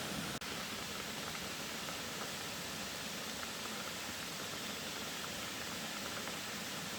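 Steady, even hiss of background noise with no distinct events, briefly dropping out about half a second in.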